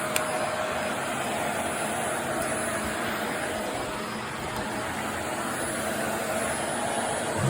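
Vacuum cleaner running over carpet: a steady rushing motor noise with a faint steady whine, and a single short click just after the start.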